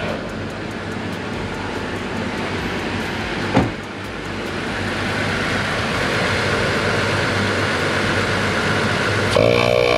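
ARB twin onboard air compressor running steadily while it fills four truck tires at once through a manifold, getting slowly louder as it works. There is one knock about three and a half seconds in, and near the end a louder whine with a clear pitch sets in.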